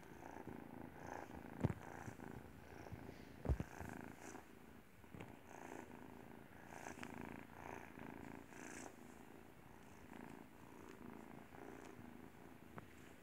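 Calico kitten purring steadily as it is stroked, with two brief bumps about one and a half and three and a half seconds in.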